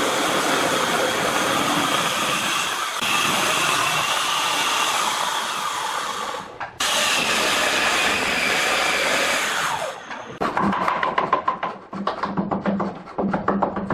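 Electric circular saw running through a hardwood stair tread, its blade cutting steadily, then winding down with a falling pitch about ten seconds in. A hand bow saw follows, cutting the wood in rapid back-and-forth strokes.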